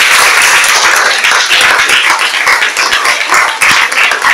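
A class of schoolchildren clapping their hands together in loud, dense applause.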